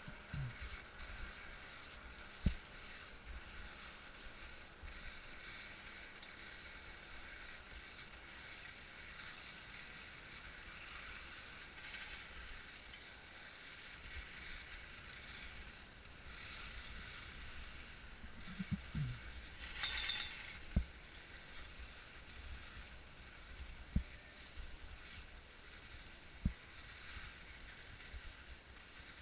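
Skis sliding over packed snow while being towed up a T-bar: a steady swishing hiss, broken by a few sharp knocks and a short, louder scraping rush about two-thirds of the way through.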